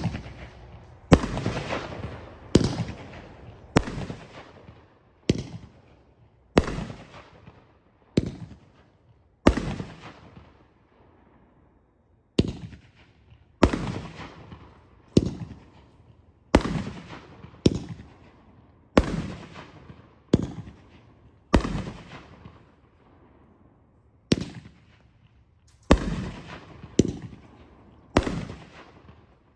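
Winda 'Goldzilla Thrilla' fireworks cake firing shot after shot: about twenty sharp aerial bangs, one every second or so, each trailing off into a fading crackle, with a couple of slightly longer pauses.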